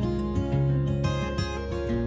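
Background music: relaxing acoustic guitar strumming chords, the notes changing about every half second.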